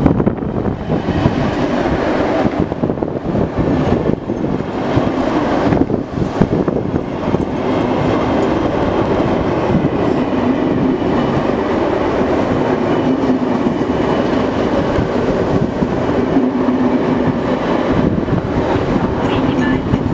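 VR Sm3 Pendolino electric train (unit 7010) passing close by at very low speed: a steady running noise of its wheels on the rails, with a steady low hum standing out from about eight seconds in.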